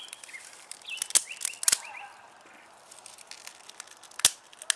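Three sharp clicks or snaps from hands working at a small concrete-block rocket stove while its tinder is being lit: one about a second in, another half a second later, and a third near the end. Short bird chirps come in between the first two.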